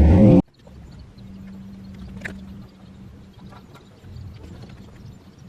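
Loud vehicle running noise that cuts off abruptly half a second in. After it comes a much quieter stretch with a steady low hum and a few sharp, separate clicks, the clearest about two seconds in.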